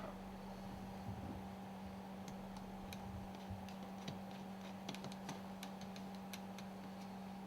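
Small, irregular clicks and taps of metal parts being handled as non-return valves are fitted into an Alpha lubricator's cylinder block, starting about two seconds in, over a steady low hum.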